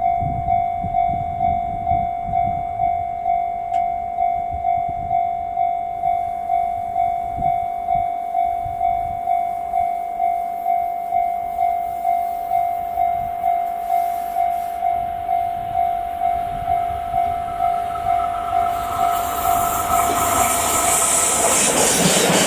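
Level-crossing warning bell ringing in an even beat of about two dings a second. Over the last few seconds the rising noise of the approaching EF81 electric locomotive and its train builds over the bell and becomes the louder sound.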